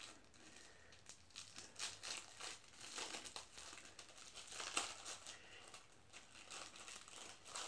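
Small clear plastic bag crinkling as it is handled and picked open, in a string of irregular crackles, the loudest a little under five seconds in.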